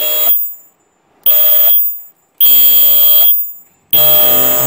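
A 20 kHz ultrasonic welder's horn switched on four times in short bursts, each a loud, steady, high-pitched screech of several tones that starts and cuts off sharply, as the newly installed horn is test-run.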